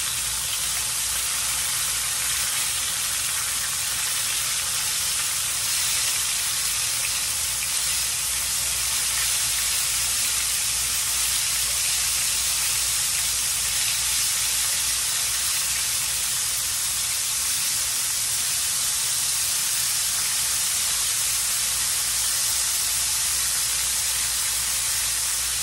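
Flour-dredged beef bites frying in hot oil in a skillet: a steady, even sizzle.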